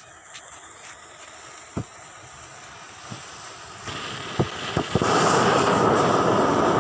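Homemade solid rocket motor, a cardboard chamber packed with firework composition with a cardboard nozzle, on a static test: a faint hiss with a few sharp pops, then from about four seconds in it builds up and a second later breaks into a loud, steady rushing of exhaust as the motor burns at full thrust.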